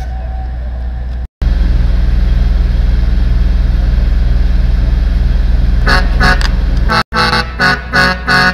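Engine-driven portable air compressor running with a steady low rumble. From about six seconds in, the bank of air horns it feeds sounds in short rhythmic blasts, several notes together, about three a second.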